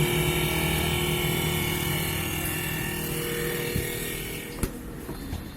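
Samsung SR-32EMB refrigerator's fan motor running with a steady whirring rattle as its blade scrapes built-up ice, the sign that the defrost cycle is failing and the evaporator is iced over. The whirr dies away near the end, with a sharp click.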